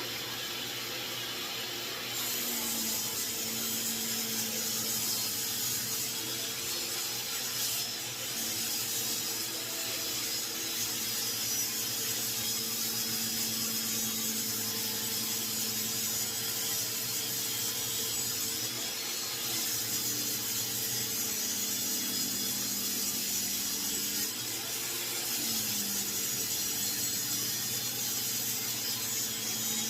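Table saw running and ripping red oak boards lengthwise, a steady motor hum under the hiss of the blade cutting; the cutting noise fills out about two seconds in and the saw's pitch sags briefly near the end as the blade loads up.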